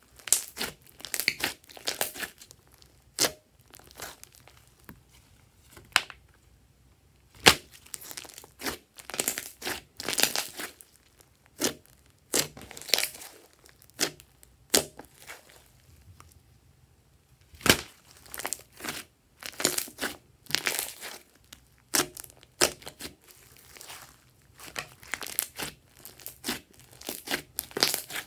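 Glossy slime squeezed, stretched and pressed by hand, giving irregular sticky pops and crackles with a few short pauses.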